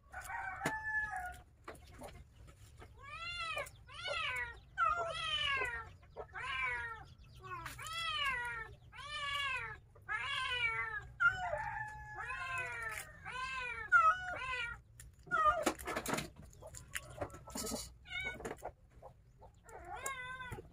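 Domestic cat meowing over and over, about one call a second, each call rising then falling in pitch. A few sharp knocks come near the end.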